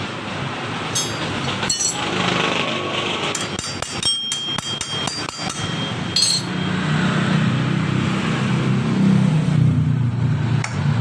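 Metal hand tools tapping and clinking on scooter CVT parts during reassembly. There are single strikes in the first two seconds, a quick run of taps and clinks about four to five seconds in, and another knock a little after six seconds.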